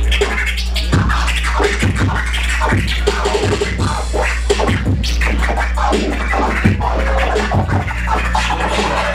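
Turntable scratching over an electronic hip hop beat with a heavy steady bass, quick back-and-forth scratch strokes cutting across the track throughout.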